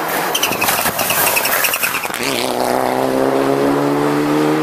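Mitsubishi Lancer Evolution rally car passing close by: sharp crackles and pops over a rough engine note as it comes through the bend, then from about two seconds in a steady engine note climbing in pitch as it accelerates hard away.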